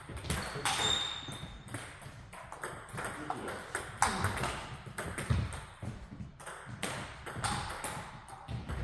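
Table tennis balls clicking sharply on bats and table tops during rallies, an irregular run of quick ping-pong hits in a large sports hall.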